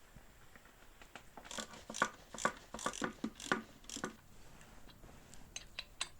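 A run of short scraping strokes on metal, two to three a second for a few seconds, followed by a few light clicks near the end: hand-tool work on a rusty motorcycle engine.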